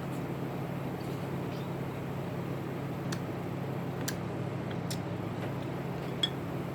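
Steady low background hum with a few short sharp clicks scattered through it, the loudest a little before the end.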